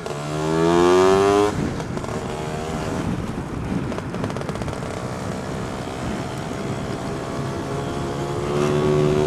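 Lambretta two-stroke scooter engine under way: it revs up for about a second and a half, then the throttle closes and it runs at lower revs with a rough rumble of wind noise. Near the end it settles into a steadier, louder note.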